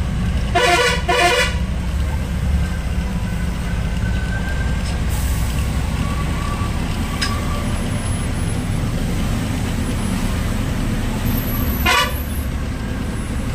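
Truck engine running steadily while driving, heard from inside the cab. Two short horn toots come about a second in, and another near the end.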